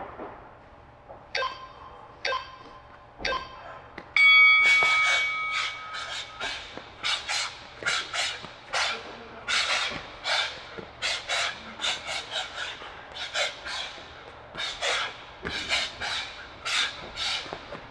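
Interval timer counting down with three short beeps about a second apart, then a louder, long beep about four seconds in that signals the start of a work round. After it come quick, rhythmic hisses, about two a second, from sharp exhales and shoe scuffs while shadowboxing.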